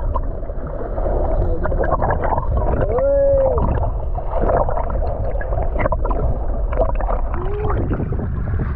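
Steady low rumble of wind and sea around a small boat, with scattered knocks. About three seconds in comes a short call that rises and falls in pitch, and a fainter one near the end.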